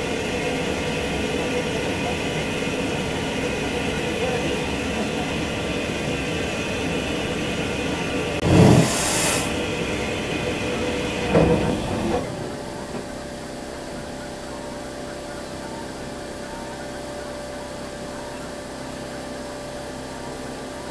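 Steady running noise of a steam-hauled train, with a brief loud hiss about eight and a half seconds in and a shorter burst about three seconds later. The noise then drops to a quieter, even level.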